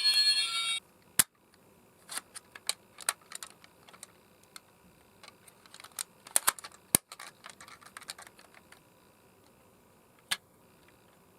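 A toy ambulance's electronic siren sounds and cuts off suddenly about a second in. A sharp click follows, then scattered small plastic clicks and taps from the toy being handled.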